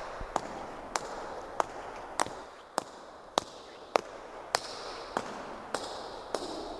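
Sharp ticks at a very even pace, a little under two a second, over a steady noisy wash that swells and fades.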